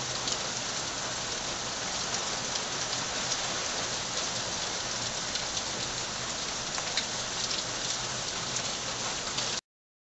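Tropical-storm rain falling steadily, a dense even hiss with scattered sharp drop ticks. It cuts off suddenly near the end.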